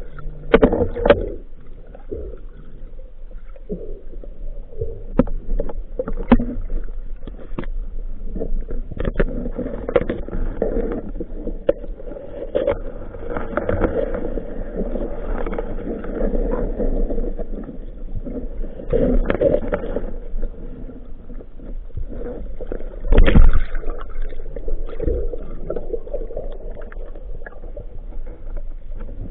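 Muffled underwater water noise, gurgling, with scattered clicks and knocks throughout and one loud thump about 23 seconds in.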